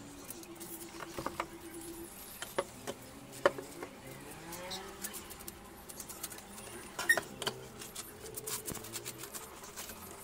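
Plastic-wrapped metal table legs with castor wheels being handled on a wooden tabletop: scattered knocks and clicks with plastic rustling, the sharpest knocks about three and a half and seven seconds in.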